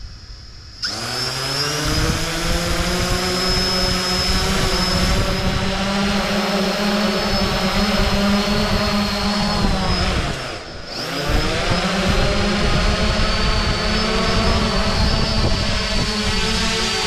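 Holybro X500 V2 quadcopter's four brushless motors and propellers spooling up about a second in to a loud, steady multi-toned hum with a high whine over it, as it is throttled up to lift off. The sound drops away sharply around ten seconds in and then rises again.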